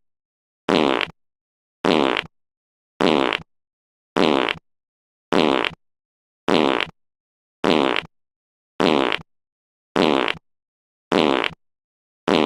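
A fart sound effect: the same short recording repeated in a loop, about once every 1.2 seconds. Each fart is brief and there is dead silence between them.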